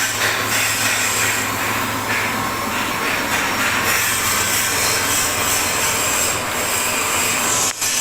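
Wood pellet mill running steadily: a constant motor hum under a harsh grinding noise with a high squeal, as the machine presses sawdust into pellets. The noise dips briefly near the end.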